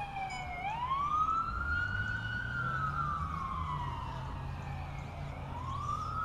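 Siren wailing. Its pitch slides slowly down, sweeps quickly back up, holds, and slides down again, about once every five seconds.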